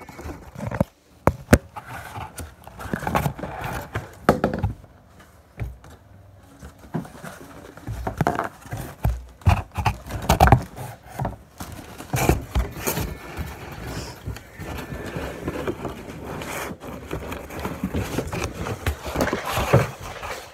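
Irregular knocks, taps and scraping, as objects are handled and moved about.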